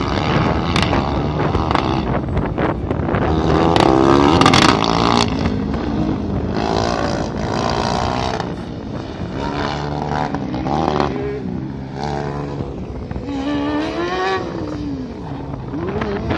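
Small open-wheel race car's engine revving up and down in repeated rises and falls as the car accelerates and slows through a cone course, loudest about four seconds in.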